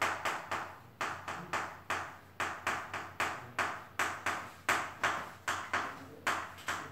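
Chalk writing on a chalkboard: a quick run of sharp taps and short scratches, about four strokes a second.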